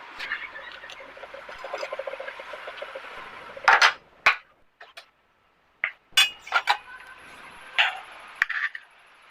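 Kitchen utensils clinking and knocking: a series of sharp, separate clinks and knocks, the loudest a little under four seconds in, with more scattered through the second half.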